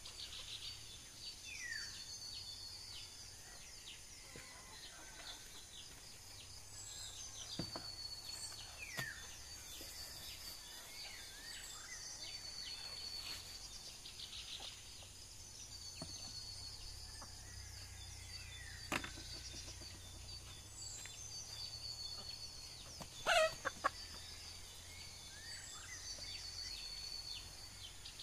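Rural outdoor ambience: a steady high insect drone with birds calling over it, a call that repeats every two or three seconds and short falling chirps. One louder call, likely a chicken, stands out late on.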